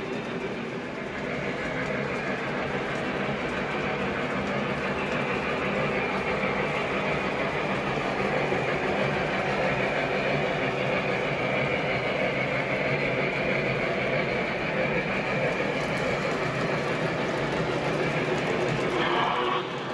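Model electric train running on the layout's track: a steady hum and rumble of the motor and wheels on the rails, with a faint held whine through the middle.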